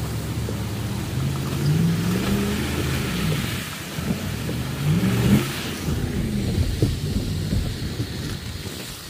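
A vehicle engine running, rising and falling in pitch several times, over the steady hiss of freezing rain falling on the truck and pavement.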